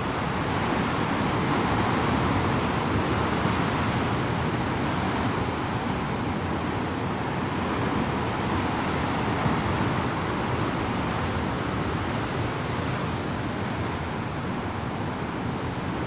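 Rough winter surf of the Sea of Japan breaking over a rocky shore: a steady rush of churning, foaming water, louder for a few seconds near the start as a wave breaks.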